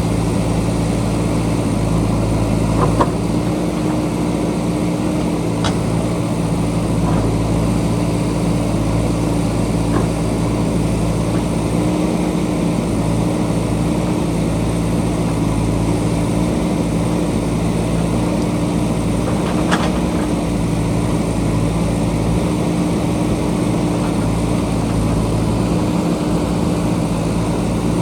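JCB backhoe loader's diesel engine running steadily under work, with a few brief sharp knocks or clanks.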